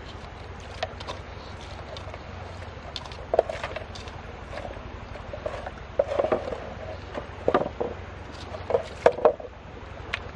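Lumps of wet clay and gravel being dropped into a wooden gold pan holding muddy water and worked by hand. Irregular knocks, splashes and scrapes come more often in the second half, over a steady low hum.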